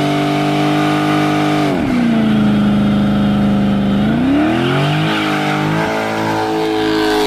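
Dodge Charger Scat Pack's 6.4-litre HEMI V8 held at high revs during a burnout. The pitch drops about two seconds in, then climbs back up around four seconds in and holds steady.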